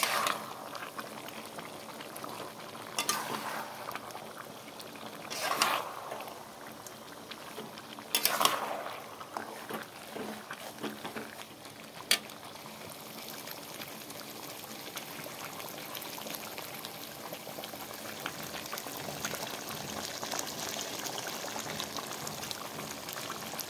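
Chicken and potato curry bubbling and sizzling in a thick masala in a metal pan, a steady bubbling hiss. In the first half a metal spatula scrapes and clatters against the pan about five times.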